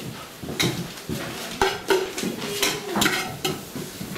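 Metal pot knocking and scraping against an enamel bowl as chopped greens are tipped and scooped out of it by hand: several sharp clanks, some with a short ring.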